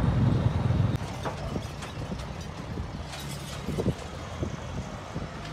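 Vehicle engine running on the move, cut off abruptly about a second in. Quieter outdoor noise follows, with scattered clicks and knocks and a faint low engine hum.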